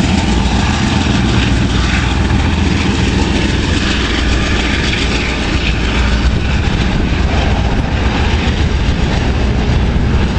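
Amtrak GE Genesis P42 diesel locomotive and its train coming down the track: a steady, loud engine drone with rolling rail noise.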